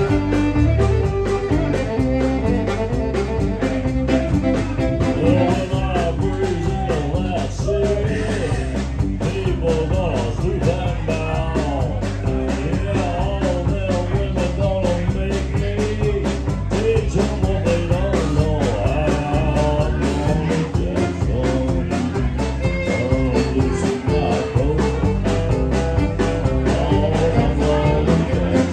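Live band playing a song with a steady beat: electric guitar, electric bass, fiddle and drum kit.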